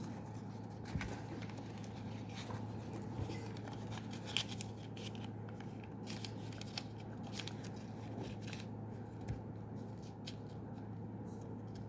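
An origami paper sheet being folded and creased by hand: faint, irregular rustles and crinkles over a steady low hum.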